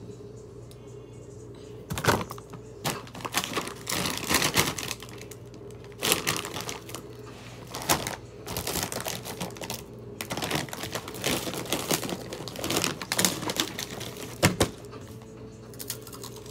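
Crinkly plastic snack bag handled and scrunched close to the microphone, in repeated bursts of crackling.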